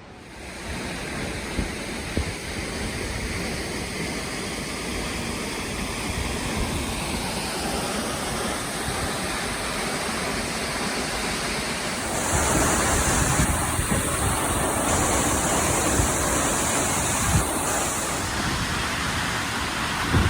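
Steady rushing roar of a large waterfall, the Catarata del Toro, a constant noise of falling water that gets a little louder about twelve seconds in.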